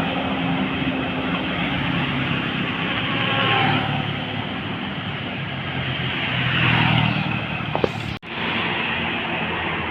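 Road traffic: vehicles passing with engine and tyre noise that swells and fades twice, and cuts out abruptly for an instant about eight seconds in.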